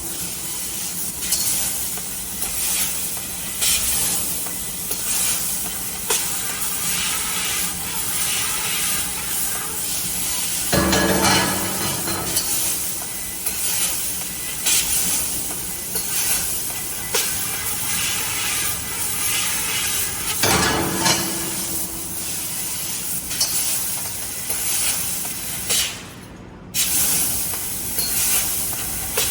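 3 kW fiber laser tube-cutting machine cutting metal tube: a continuous sizzling hiss with a run of crackles. Heavier bursts come about eleven and twenty seconds in, and the sound briefly drops out about a second before the end.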